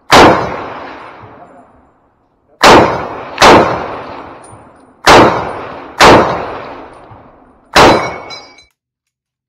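Six rifle shots from an M1 Garand in .30-06, fired at an uneven pace over about eight seconds, each with a long echoing tail. The last shot is followed by a brief metallic ping, the Garand's empty en-bloc clip being ejected.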